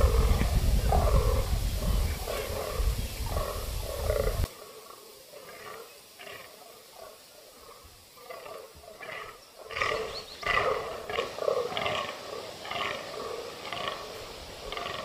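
Fallow bucks croaking in the rut: a string of short, deep, belching groans repeated about once a second. A low wind rumble on the microphone covers the first four seconds and then cuts off abruptly.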